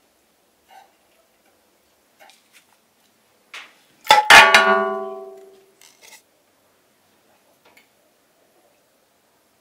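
A wooden cutting board knocks against the rim of an empty stainless steel pot as chopped tomatoes are slid in, and the pot rings out with a clear metallic tone that fades over about a second and a half. A few faint clicks of kitchen utensils come before and after it.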